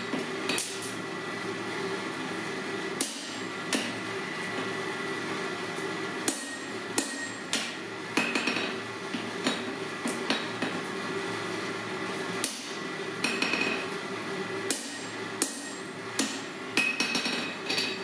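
Hand hammer striking an H13 hammer-eye punch held in tongs, driving it into a red-hot steel block on an anvil. Sharp metal-on-metal blows come at an irregular pace, roughly one or two a second with short pauses, over a steady background hum.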